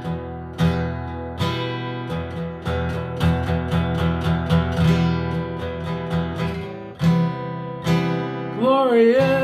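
Acoustic guitar strummed in a steady rhythm, chords ringing between the strokes. Near the end a man's voice comes in, singing.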